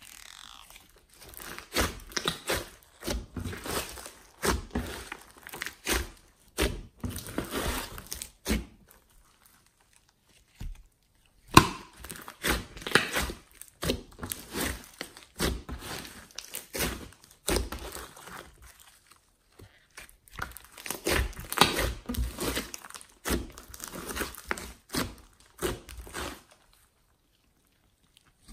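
Glittery slime mixed with clay being squeezed, stretched and folded by hand: wet squishing with many small sharp clicks, in irregular bursts. It pauses briefly near the middle and again near the end.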